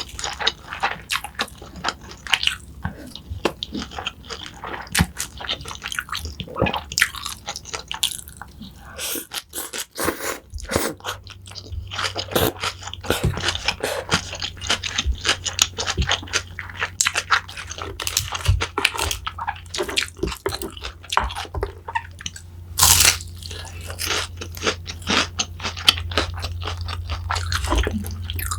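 Close-miked crunchy chewing and biting: a person eating crisp food, with dense, irregular crackling crunches. A low steady hum joins about eleven seconds in.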